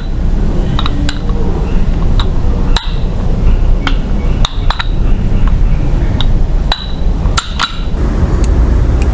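Balisong (butterfly knife) handles clicking against each other and the blade as the knife is flipped through a loop. About a dozen sharp metallic clicks come at an irregular pace over a steady low background rumble.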